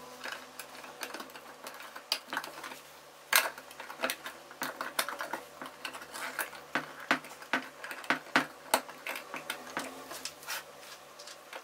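Thin 3 mm laser-cut wooden box panels clicking and tapping as they are handled and pressed together by hand: irregular light knocks, with one louder knock about three seconds in.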